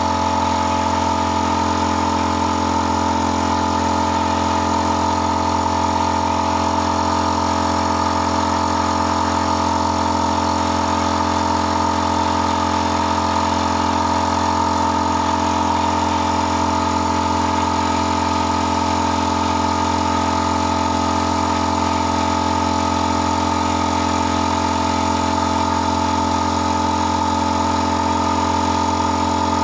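A motor running steadily, with an even, unchanging hum.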